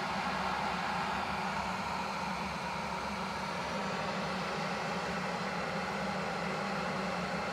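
Chefman electric kettle heating water, a steady rushing noise with a low hum as it comes up to the boil.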